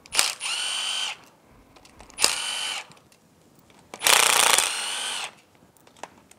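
Milwaukee M12 FUEL cordless driver spinning out numbered engine-block bolts, highest number first, in three short runs of steady whine. The third run, a little past halfway, opens with a harsher burst before it settles into the whine.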